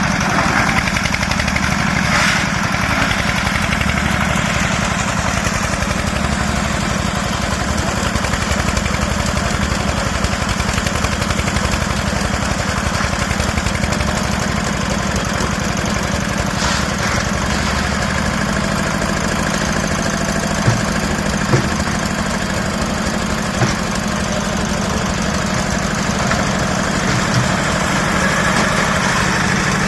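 Engine of a mini concrete lift machine running steadily, with a few short knocks about twenty seconds in.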